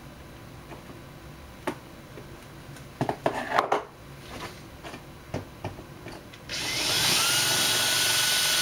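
Small clicks and rustling as parts are handled. About six and a half seconds in, an electric drill spins up with a short rising whine and runs steadily, drilling through the metal of a blower motor resistor.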